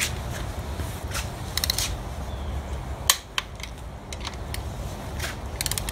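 Torque wrench ratcheting as it runs down engine mount bolts with a 17 mm socket, making a first pass at 35 ft-lb: short runs of quick metallic clicks, with one sharper single click about three seconds in, over a low steady hum.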